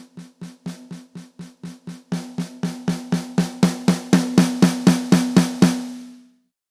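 Trig Mic Gen2 drum trigger playing its built-in factory snare sample, heard direct from the line output: an even run of snare hits, about four a second. The hits are softer for the first two seconds, then louder and building, and they stop shortly before the end with a brief ring.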